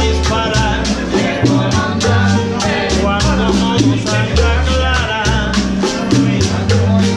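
Live Cuban band music: an upright bass plucking steady low notes under strummed acoustic guitars and a hand percussion instrument keeping an even beat, with a man singing.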